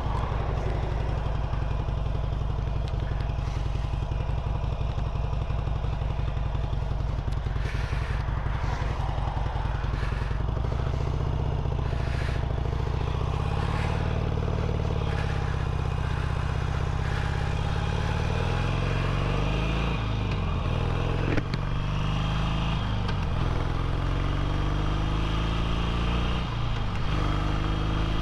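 Harley-Davidson Sportster's air-cooled V-twin engine running under way. Its note is steady at first, then rises and falls in pitch several times in the second half as engine speed changes. A single sharp click comes about three-quarters of the way through.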